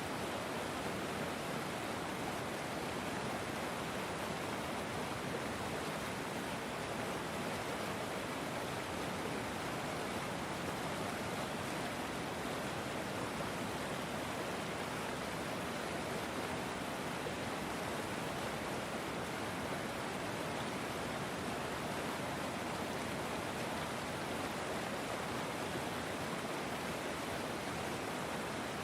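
River water flowing in a steady, even rush with no breaks or changes.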